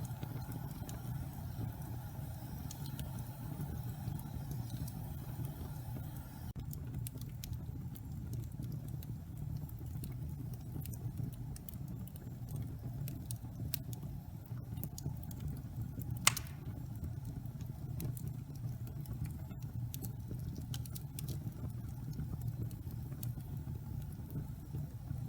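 Wood fire burning in a fireplace: a steady low rumble of the flames with scattered small crackles, and one sharp, loud pop about two-thirds of the way through.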